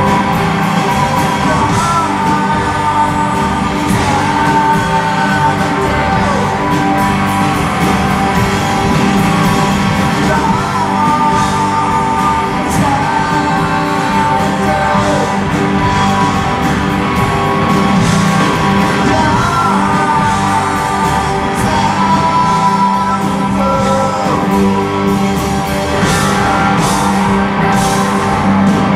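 Live rock band playing: electric guitars, drums and keyboard, with sung vocals over them.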